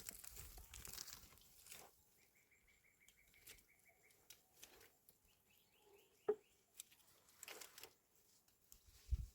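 Quiet mountain ambience: rustling for the first couple of seconds, then a small bird trilling twice in short runs of quick repeated notes. A sharp click about six seconds in is the loudest sound, and there is a low thump near the end.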